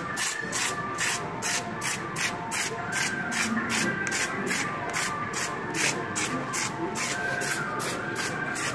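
Aerosol spray-foam insulation (Polynor) hissing out of its can through a foam gun onto a steel bathtub, in quick even pulses about four a second.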